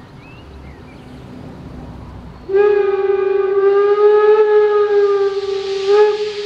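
Steam locomotive whistle: one long blast at a single steady pitch, starting about two and a half seconds in and holding for about three and a half seconds, then a short second blast. As the whistle ends, steam starts to hiss from the locomotives' open cylinder cocks.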